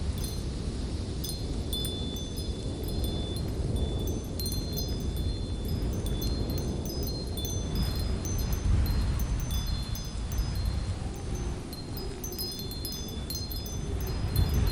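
Light wind blowing steadily with a low rumble, and scattered high, clear tinkling notes ringing over it.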